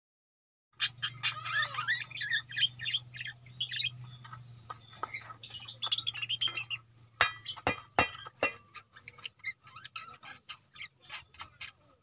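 Budgerigars chirping and warbling in quick, varied calls. From about seven seconds in, a run of sharp clicks and clinks joins the chirping.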